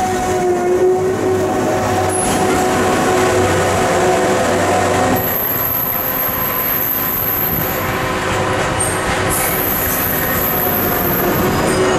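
Network Rail stoneblower track machine running past and drawing away, its diesel engine giving a steady loud rumble with a held hum that eases off about halfway through. A thin, very high whistle comes and goes in the second half.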